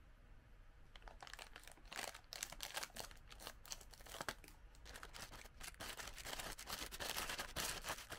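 Crinkly plastic snack-bag film rustling and crackling as the bag is handled and cut open with scissors, starting about a second in. The individually wrapped biscuits rustle as they slide out of the bag, busiest near the end.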